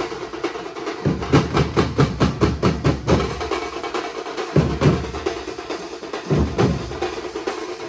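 A street drum band plays a fast, loud rhythm on stick-beaten drums, about six strokes a second. The deep drum beats drop out briefly at the start and again for over a second in the middle.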